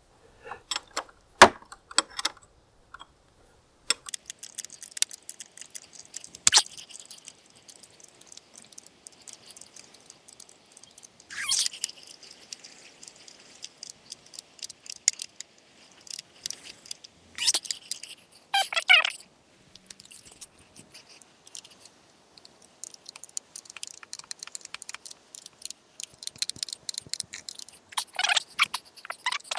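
Metal hand tools clicking and clinking on bolts and metal parts, in quick runs of light clicks with a few louder clanks and scrapes, as the loose engine mounting bolts of a motorcycle are tightened.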